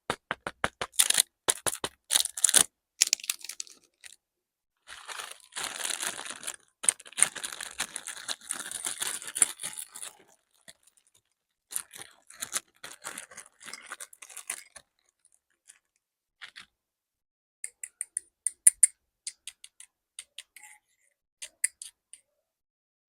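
Plastic packaging crinkling and tearing in stretches, among sharp clicks and taps from small wooden toy pieces being handled.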